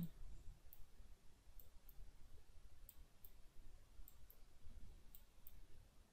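Faint computer mouse clicks at irregular intervals, often in quick pairs, as faces are picked one by one, over a low background hum.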